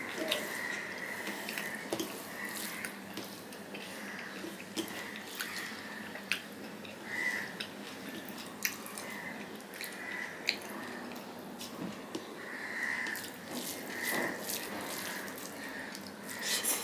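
Fingers kneading rice and curry on a stainless steel plate: wet squelching with many sharp, scattered clicks, along with chewing and lip-smacking mouth sounds.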